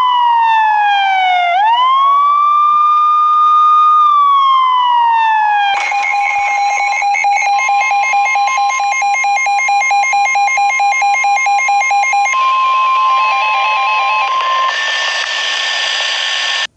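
Electronic police siren: a wail that slowly falls and rises in pitch, then switches about six seconds in to a fast warbling yelp of about five cycles a second, ending on steadier tones that cut off suddenly.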